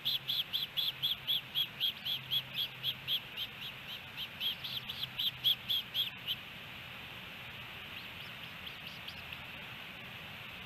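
Osprey calling: a rapid run of short, high whistled chirps, about three or four a second, that stops abruptly about six seconds in, followed by a few fainter chirps over a steady hiss.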